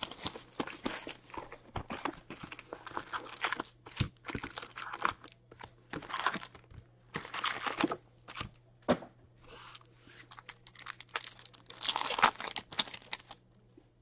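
Clear plastic shrink wrap and card pack wrappers crinkling and tearing as a hockey card hobby box is unwrapped and its packs are torn open: a busy run of rustles and small clicks that stops shortly before the end.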